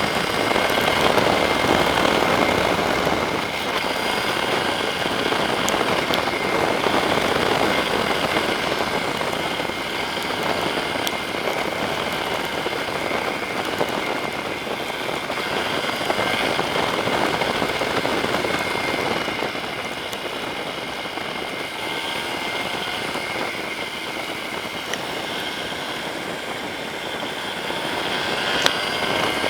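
Yamaha Serow 250's air-cooled single-cylinder engine running as the motorcycle is ridden, under a steady rush of wind and rain noise.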